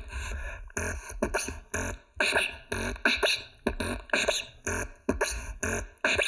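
Beatboxing: a mouth-made beat of deep kick-drum thumps and sharp snare hits in a steady, repeating rhythm.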